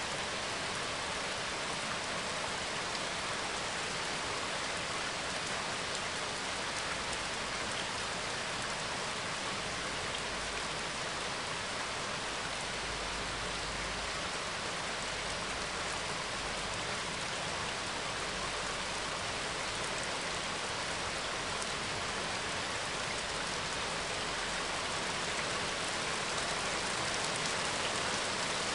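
Steady rain falling, a recorded rain ambience track playing as background.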